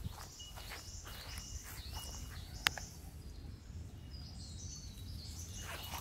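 Birds chirping and calling in high, short phrases over a steady low rumble, with a few soft rustles and a single sharp click a little before halfway.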